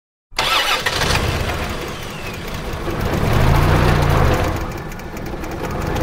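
An engine starting and running, revving up and falling back about three to four seconds in.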